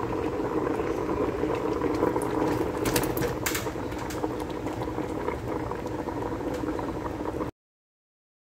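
A pot of soup boiling and bubbling steadily, with a few sharp clicks and knocks about three seconds in as corn cobs are tipped from a plastic colander into the pot. The sound cuts off suddenly about seven and a half seconds in.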